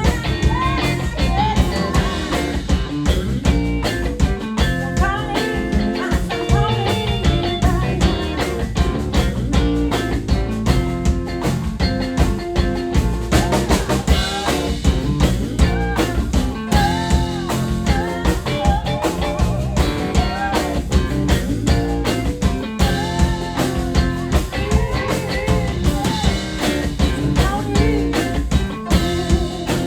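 A live band playing an instrumental passage of the song, with drum kit and guitar over a steady beat.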